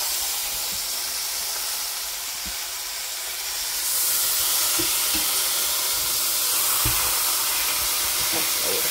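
Chicken leg quarters sizzling on a hot indoor grill set to 500 degrees, a steady hiss that grows louder about four seconds in, with a few light knocks as the pieces are shifted into place.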